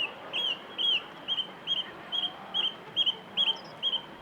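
A songbird repeating one short, arched whistled note about two and a half times a second, some ten times in a steady series.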